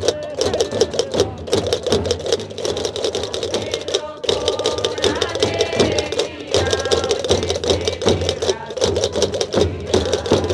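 Gomeran drums with rope-laced skin heads beaten with sticks, together with the rapid clacking of chácaras (large castanets) in a fast, dense rhythm. A group of voices sings over them, clearest in the middle.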